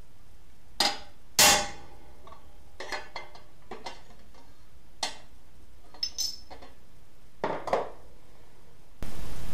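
Hammer blows on a stainless-steel buckler's sheet-metal flange over an anvil: about ten irregular strikes, some leaving a short metallic ring, the loudest about one and a half seconds in. Near the end a steady hiss starts suddenly.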